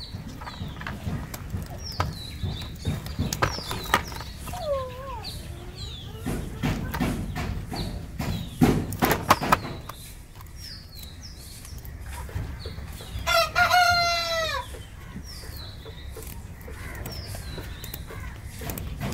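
Kitchen scissors clicking and scraping as they snip and scale a live climbing perch. About two-thirds through, a rooster crows once, for about a second and a half, the loudest sound here. Small birds give short high chirps now and then.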